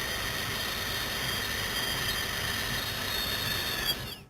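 A long, slow, even hissing exhalation through closed teeth, the 'sss' lung sound of the Taoist Six Healing Sounds. It is held at a steady level and cuts off abruptly at the end.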